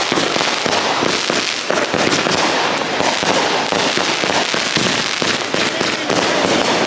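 Fireworks crackling in a rapid, unbroken stream of small pops, loud throughout.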